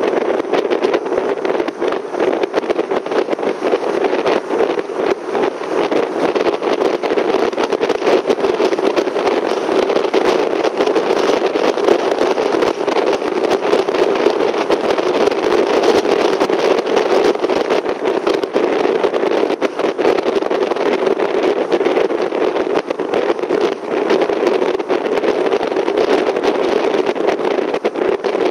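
Steady drone of a car driving at speed: engine and tyre noise on tarmac with a rushing hiss, even throughout.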